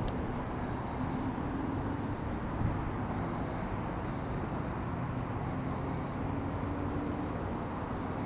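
Steady low outdoor background rumble with a faint wavering hum, and a brief sharp click right at the start.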